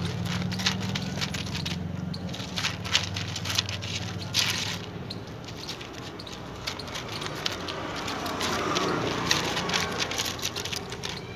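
A puppy crunching dry kibble from a steel plate, the pellets rattling and clicking against the metal in quick, irregular clicks.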